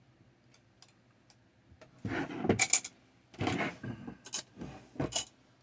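Someone rummaging for scissors among small hard objects, which clatter and rattle in three bursts after a couple of seconds of quiet.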